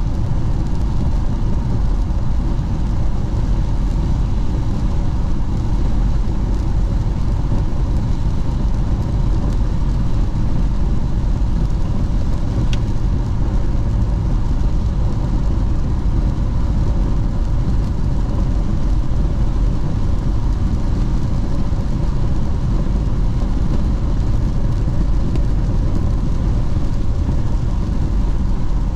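Steady road noise inside a car's cabin at highway speed on wet pavement: a low, even rumble of tyres and engine. A single faint click comes a little before halfway through.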